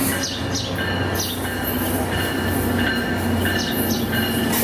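A train rolling by: a steady low rumble of wheels on rail, with thin high wheel squeals that come and go and scattered clicks.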